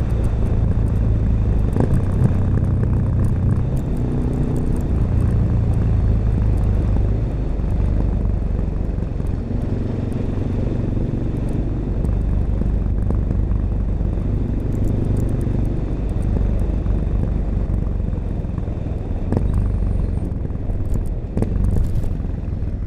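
1986 Honda XL600RM single-cylinder four-stroke engine running through an aftermarket XRacing exhaust with its dB killer fitted, its pitch rising and falling several times with the throttle. A few sharp clicks come near the end.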